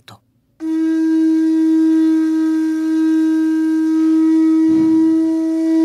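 A wind instrument holds one long, steady note, starting about half a second in and held for about five seconds without changing pitch.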